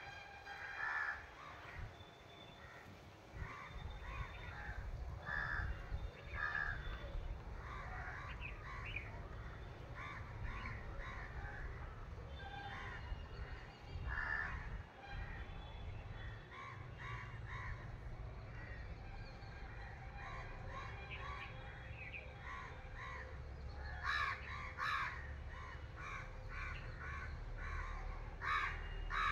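Crows cawing repeatedly, short calls in loose groups, with a busier run of several calls about 24 seconds in and again near the end.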